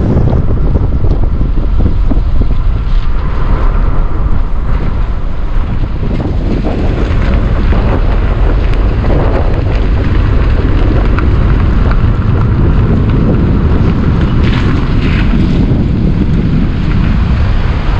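Wind buffeting the microphone, a loud, steady low rumble.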